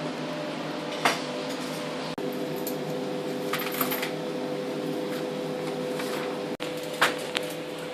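Lampworking bench torch hissing steadily over a low hum while glass rods are worked in its flame, with sharp glassy clinks about a second in, a cluster near four seconds, and one about seven seconds in.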